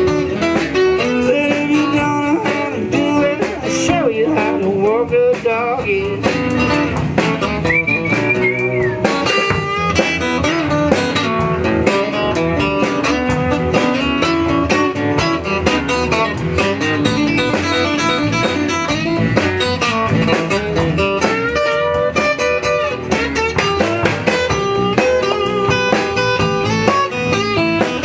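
Small blues band playing live: acoustic guitars with a drum kit keeping a steady beat.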